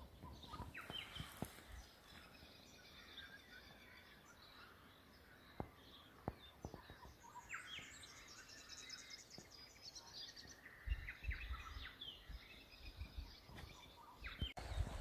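Birds calling and chirping over faint outdoor background noise, with a quick rapid trill about halfway through and a few brief low rumbles a little past two-thirds of the way.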